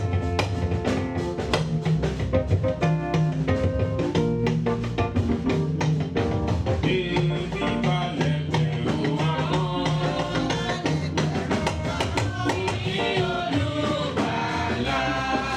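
Band music with a busy drum-kit beat and a steady bass line; singing voices join about halfway through.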